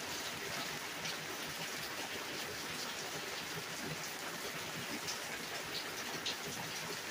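Heavy rain falling steadily: a constant even hiss, with a few sharper drips close by.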